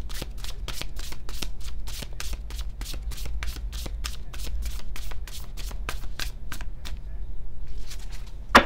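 Deck of tarot cards being shuffled by hand, the cards slapping together in a quick, steady rhythm of about four strokes a second. The shuffling stops a little before the end, and then there is one sharp, loud tap of a card.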